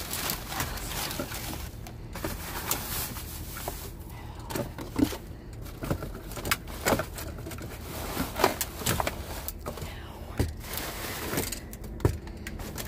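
Cardboard boxes and plastic wrap being shifted and handled, making irregular rustles, crinkles and knocks.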